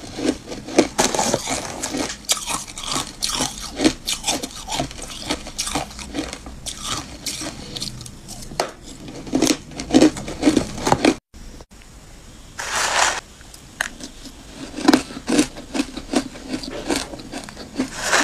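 Close-up crunching of matcha-powdered ice chewed between the teeth: a dense run of crisp cracks and crunches. There is a momentary break a little past the middle, then a short rasping hiss, and the crunching starts again.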